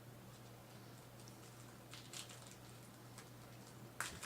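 Faint rustling and light clicks of trading cards being handled and slid through the hands, over a steady low hum; a sharper click comes about four seconds in.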